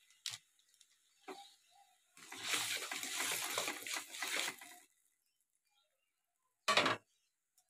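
A metal spatula stirring and scraping a watery spice paste in a steel kadai for about two and a half seconds, with liquid sloshing. A single short knock comes near the end, and there are two faint clicks before the stirring.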